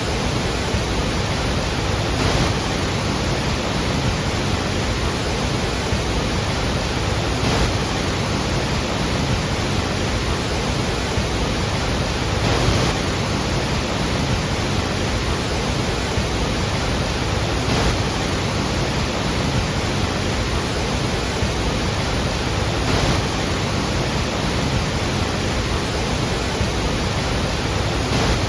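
Iguazu Falls: a large waterfall's falling water, a steady, dense rush of noise with no let-up.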